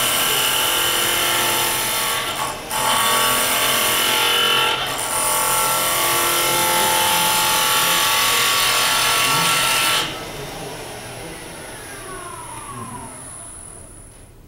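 A turning tool cutting a wooden spindle on a running wood lathe: a loud, steady scraping-cutting noise with two brief breaks as the tool lifts off. About ten seconds in the cut stops suddenly, and a falling whine follows as the lathe spins down.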